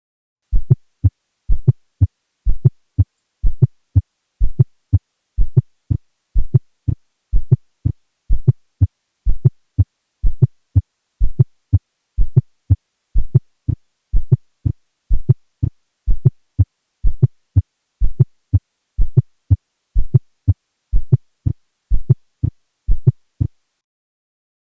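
Stethoscope recording of a patient's heart with an S4 gallop: low-pitched thumps repeating at about one beat a second, with an extra late-diastolic sound just before the first heart sound. An S4 is considered always pathologic and is thought to come from atrial contraction into a stiff, non-compliant ventricle.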